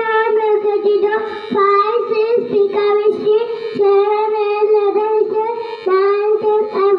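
A young girl's voice chanting a nursery poem in a sing-song tune, one short line after another.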